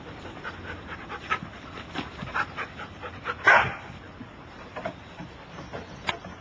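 Two dogs playing: a run of short dog sounds, with one louder outburst about halfway through and another sharp one near the end.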